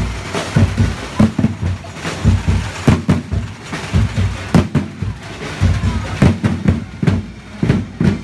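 Marching parade drums, large drums on wheeled carts beaten with mallets, keeping up a quick, steady rhythm of deep thuds.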